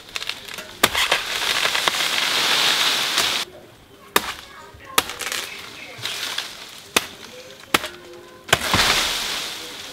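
A machete strike, then a rush of rustling and crashing dry fronds lasting about two and a half seconds as a coconut palm falls. This is followed by about five sharp machete chops into the palm's trunk, roughly a second apart, with another burst of frond rustling near the end.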